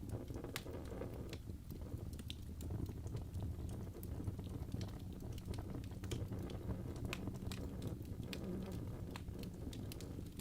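Fire burning in a fireplace, crackling with irregular sharp pops and snaps over a low steady rumble.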